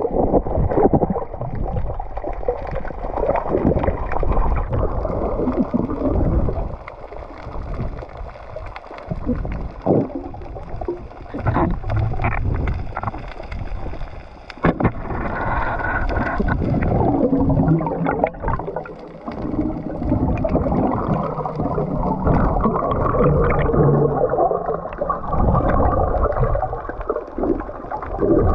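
Muffled underwater sound picked up by a camera in a waterproof housing: water gurgling and surging around it as the swimmer moves. There are a few sharp clicks near the middle.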